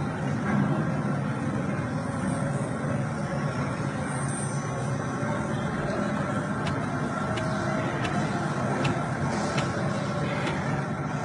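Steady background room noise of a large hall, with a few faint ticks in the second half.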